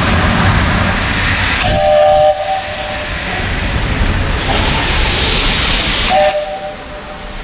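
Steam locomotive hissing loudly as steam blows from low at its front, with two short two-note blasts of its steam whistle, about two seconds in and about six seconds in.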